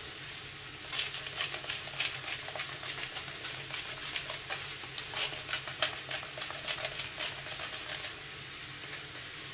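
Diced meat and onion sizzling in a frying pan while a pepper mill is twisted over it, a run of quick, irregular grinding clicks from about a second in to near the end.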